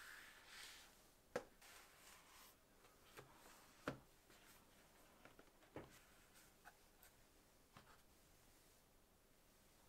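Faint handling sounds of a camera and its accessories being packed back into their box: a few sharp clicks and taps, two louder ones in the first four seconds, with light rustling of packaging.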